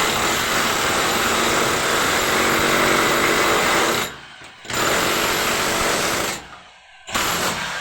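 A power tool running in bursts: a long run of about four seconds, a short pause, a shorter run, another pause, then it starts again near the end.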